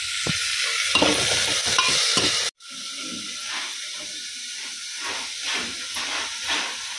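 Chole masala frying in oil in an open aluminium pressure cooker, stirred with a metal ladle: a steady sizzle with regular scraping strokes, the masala at the stage of being roasted through. The sound cuts out for an instant about two and a half seconds in and comes back quieter, with the stirring strokes about twice a second.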